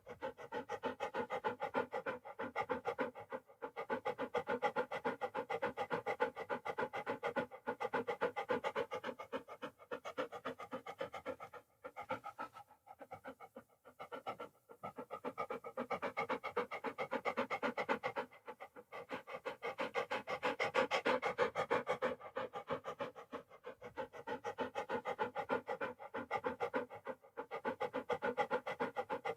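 A dog panting fast and steadily in long runs of rapid breaths, with a few short pauses near the middle.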